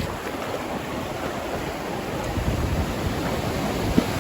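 Ocean surf washing and breaking, with wind buffeting the microphone; a single sharp knock near the end.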